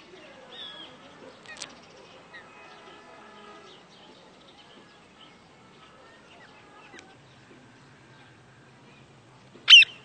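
Birds chirping and calling faintly, many short twittering calls and glides. Near the end, a single brief, loud, shrill sound cuts in, far louder than the rest.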